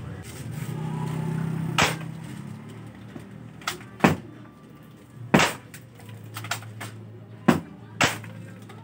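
Spring-powered airsoft rifle (D'Cobra Reborn M416 springer) fired one shot at a time: five sharp snaps about one to two seconds apart, with fainter clicks between them, over a low steady hum.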